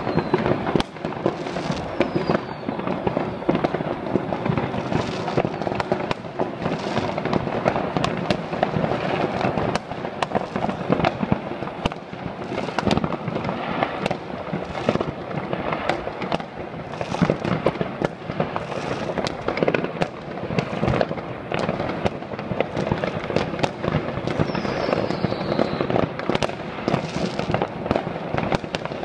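New Year's Eve consumer fireworks going off all over a city at once: a dense, unbroken crackle of bangs with many sharper reports scattered through, and a few short whistles.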